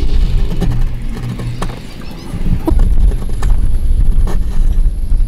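Wood chisel paring a hardwood joint by hand, giving short sharp clicks spaced irregularly, under a loud steady low rumble.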